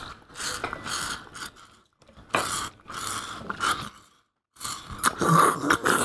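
A person slurping milk from a glass in a run of noisy sucks, with short breaks about two and four seconds in.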